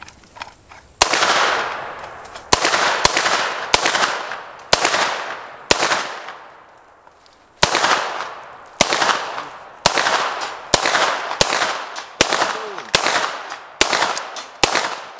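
Gunshots fired one at a time at an uneven pace, about eighteen in all, each sharp crack trailing off in a long echo. There is a pause of about two seconds near the middle.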